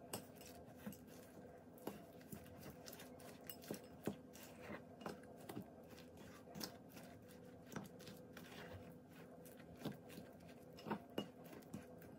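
Metal fork clinking and scraping against a glass mixing bowl while stirring cake batter by hand: faint, irregular clinks about once or twice a second.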